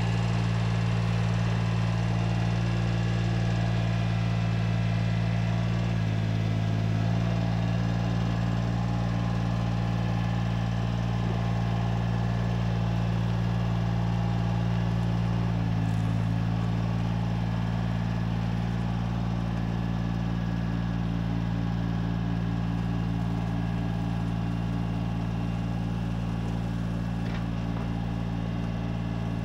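John Deere 755 compact tractor's three-cylinder diesel engine running steadily as it pulls a pickup truck on a chain. Its note shifts slightly about 6 seconds in and again about 16 seconds in.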